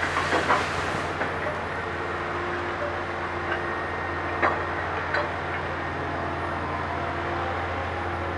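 Liebherr HS 8300 HD dragline's engine running steadily with a low hum while the machine works. In the first second gravel pours out of the dragline bucket with a hiss, and a few short metallic clanks from the bucket and its rigging come between about three and five seconds in.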